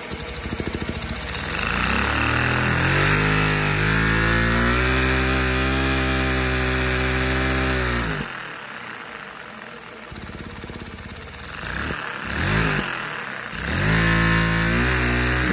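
LEGO vacuum engine, a piston engine driven by a vacuum cleaner's suction, revving at full throttle: its hum climbs in pitch over the first few seconds and holds steady, dies away about eight seconds in as the throttle is eased off, then is revved up again twice, briefly around twelve seconds and back to high speed near the end.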